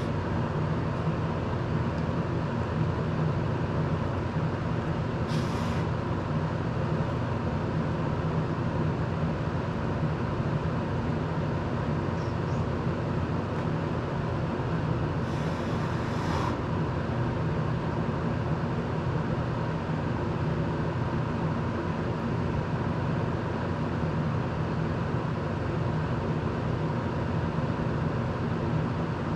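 Steady whirr of an electric desk circulator fan running, with a low hum and a faint steady tone under it. Two brief hisses cut in, about five seconds in and again around the middle.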